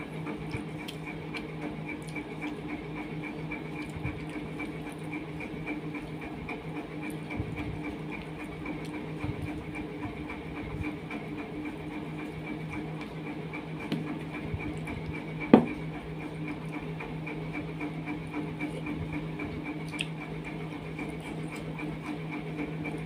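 A hand mixing rice and curry on a steel plate and picking up food, with many small clicks and one sharp clink about fifteen seconds in, over a steady hum.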